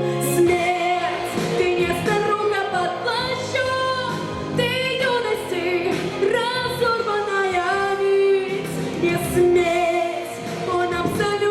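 A woman singing a slow song over instrumental accompaniment, holding long notes with vibrato.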